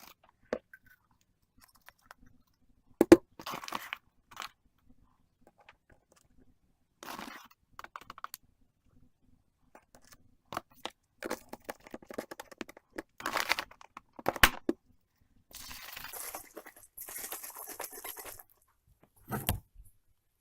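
Scattered small handling noises: sharp clicks and knocks, the loudest about 3 and 14.5 seconds in, between stretches of rustling and scraping, a longer rustle near the end and a dull thump just before the end.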